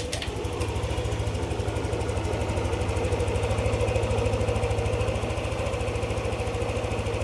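Yamaha NMAX 155 V2 single-cylinder scooter engine starting at once and settling into a steady, even idle. The idle is back to normal after the ECU reflash that cured its dropping idle and stalling.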